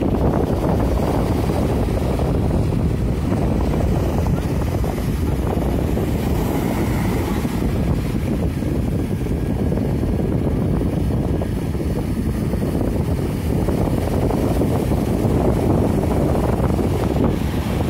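Steady wind buffeting the microphone, over the wash of breaking surf.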